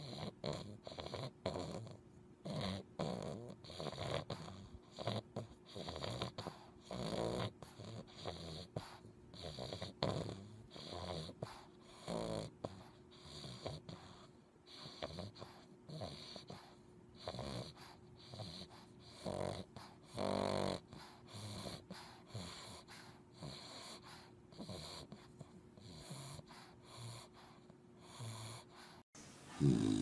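Bulldog puppy snoring in its sleep: irregular rasping breaths about once a second, with a longer, louder snore about twenty seconds in.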